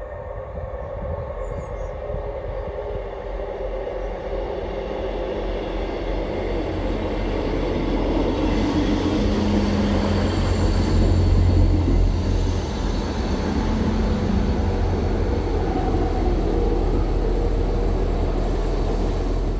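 A train approaching a station platform, its running noise growing louder over about ten seconds, then carrying on steadily, with a few steady hums in it.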